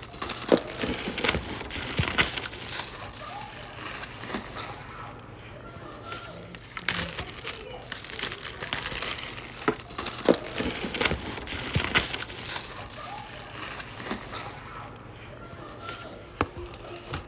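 Plastic wrapping and packaging of an Apple iPad Pro box crinkling and crackling as it is opened and handled, with irregular sharp clicks and rustles.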